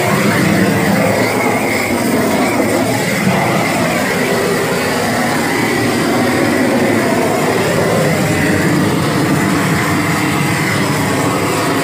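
Gas-fired flame torch (a flame-weeder 'vassoura de fogo') burning with a loud, steady rushing noise.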